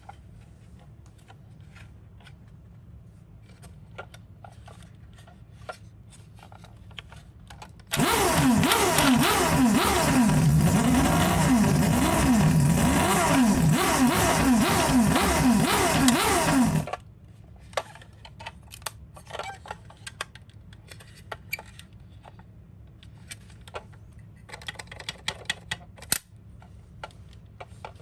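Many toy ambulance sirens going off at once, a dense chorus of wavering electronic wails that starts suddenly about 8 seconds in and cuts off abruptly about nine seconds later. Light clicks and clatter come before and after it.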